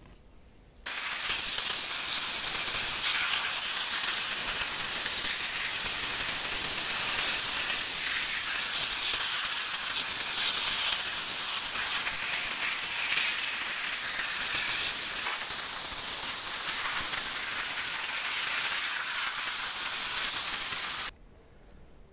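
Loud steady hiss of a compressed-air tool blasting, starting suddenly about a second in and cutting off abruptly near the end.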